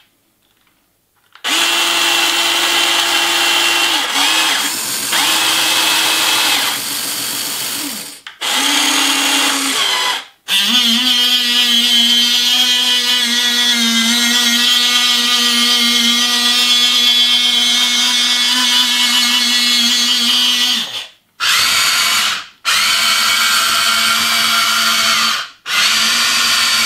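Battery-powered Amewi ACV730 V3 (Huina 1593) 1:14 RC crawler excavator's motors and gearboxes whining as its functions are run one after another, with its sound module switched off. The whine starts about a second and a half in and comes in bursts of a few seconds, the longest about ten seconds, its pitch changing from one burst to the next.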